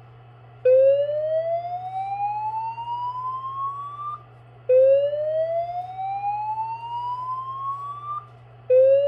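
System Sensor SPSR fire alarm speaker strobe sounding the slow-whoop evacuation tone: a rising sweep from low to high pitch, each lasting about three and a half seconds with a short gap. Two full sweeps sound, and a third starts near the end. This is the alert signal that comes before a voice evacuation message, and it plays over a steady low hum.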